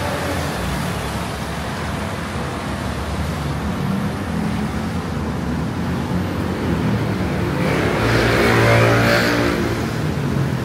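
City road traffic, a steady rumble of engines and tyres, with one vehicle passing louder near the end, its engine note swelling and then fading.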